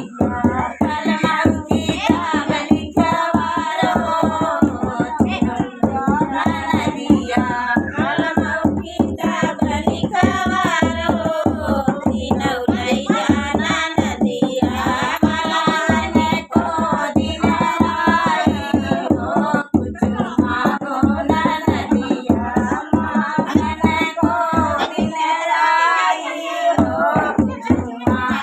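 A woman singing an Awadhi uthan geet folk song, accompanying herself on a hand-beaten dholak in a steady rhythm. The drum stops for a moment near the end while the singing carries on.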